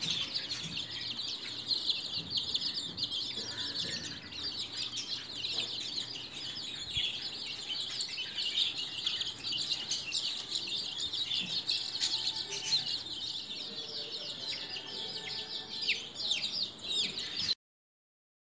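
A flock of two-week-old domestic chicks peeping constantly, many high, short chirps overlapping one another. The peeping stops abruptly near the end.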